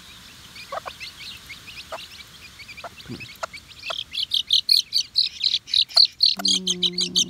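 Young chicks peeping: a scattered few high peeps at first, then a loud, rapid run of peeps from about four seconds in. Near the end a hen gives a low, drawn-out call under the peeping.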